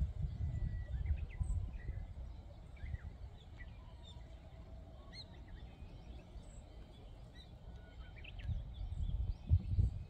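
Wind buffeting the microphone with a low rumble, gusting hardest at the start and again near the end, while small birds chirp and call in short notes throughout.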